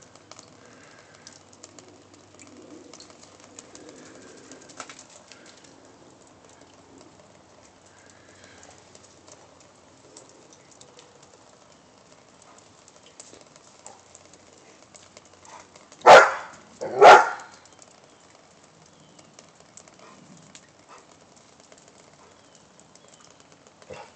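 A dog barking twice, about a second apart, some two-thirds of the way in. The rest is a faint outdoor background with faint bird calls.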